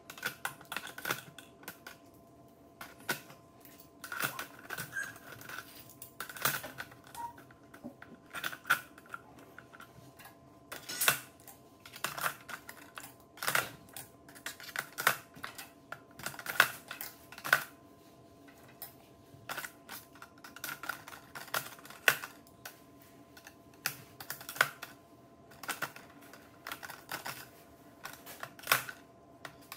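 Black kitchen knives clicking and clacking on a granite countertop and against a clear acrylic knife stand as they are picked up and slid into its slots. The clacks are sharp and irregular, several a second.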